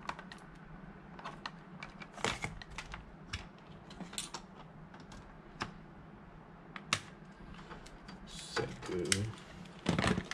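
Scattered light clicks and taps of wires, plastic connectors and a clamp meter being handled, irregular and a few per second.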